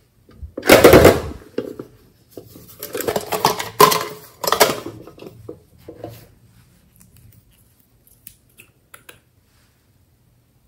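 Hard plastic and glass cosmetic containers handled on a tabletop: a loud clatter just under a second in, then a run of knocks and sharp clicks as a nail polish bottle is picked up and opened. A few faint clicks follow near the end.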